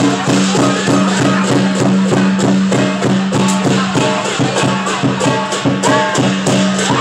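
Lion dance percussion: drum and clashing cymbals beating a fast, steady rhythm, loud and continuous, over a held low ringing tone.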